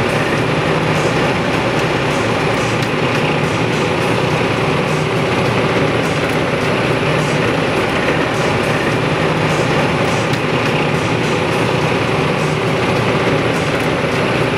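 Heizohack wood chipper, driven by a New Holland T8.330 tractor, running under load as branches are fed into it, heard from inside the crane cab: a loud, steady, dense machine noise with faint crackling ticks over it.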